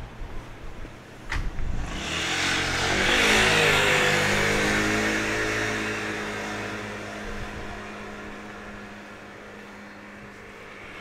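A car passing close by and driving away. Its noise swells to a peak about three seconds in, and its engine hum drops in pitch as it goes past, then slowly fades.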